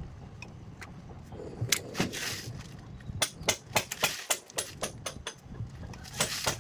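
A run of irregular sharp knocks and clicks, several a second, from about two seconds in until near the end.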